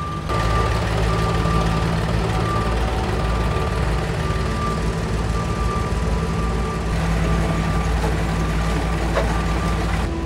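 Diesel farm tractor engine running steadily under load while towing a frame grader over loose soil, with a thin high-pitched tone coming and going over the drone.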